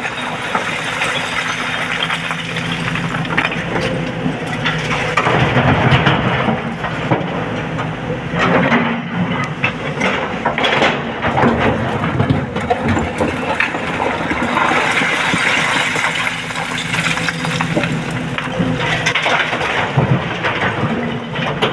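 SANY 225 excavator's diesel engine running steadily under load, with the crunching and clattering of rock and earth being scooped and dropped, in many sharp knocks throughout.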